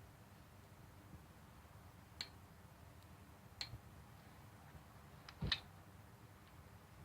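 A few faint, sharp metallic clicks from hand tools, spaced a second or so apart, the loudest near the end with a dull knock under it.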